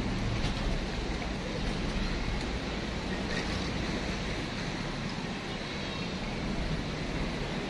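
Steady rushing outdoor background noise with no distinct single event.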